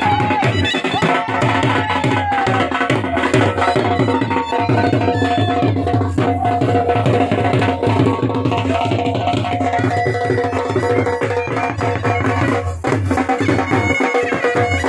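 Live folk music: a dhol drum beating a steady quick rhythm under the held, droning notes of a wind instrument, the baja.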